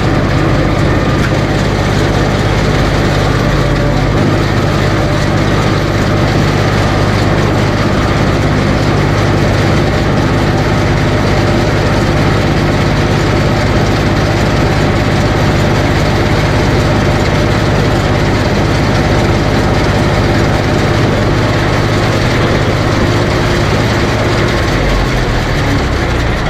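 Tractor engine running steadily and loudly, pulling a New Holland 644 round baler while baling grass silage.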